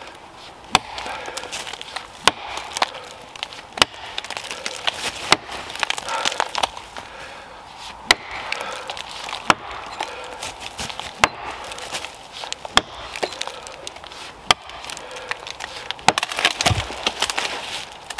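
A Rinaldi Calabria axe, its edge freshly filed to a flatter profile, chopping into a felled tree trunk. Its sharp knocks of steel biting wood come roughly every one to two seconds, and a deeper thud lands near the end.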